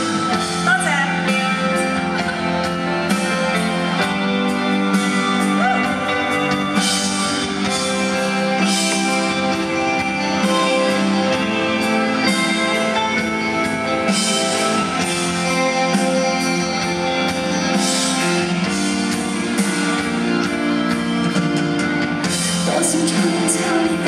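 Live Cantopop band performance with singing: full band over sustained chords, with loud accents every few seconds.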